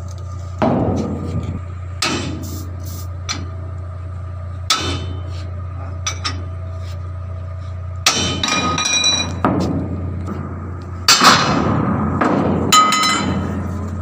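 Hammer blows on steel while a bulldozer track is being taken apart: about seven separate strikes, irregularly spaced, several ringing with a metallic tone. A steady low hum runs underneath.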